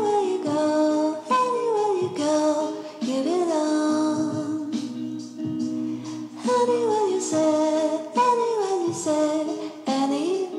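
Background music: a song with a sung melody gliding over steady held chords.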